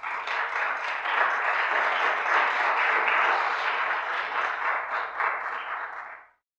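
Audience applauding steadily, many hands clapping together, then cutting off about six seconds in.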